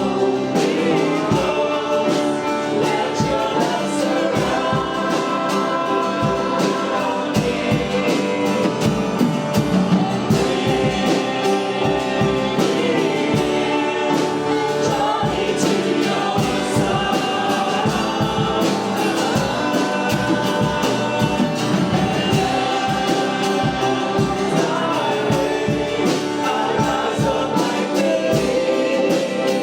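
A congregation and worship team singing a gospel worship song with a band, the beat running steadily throughout.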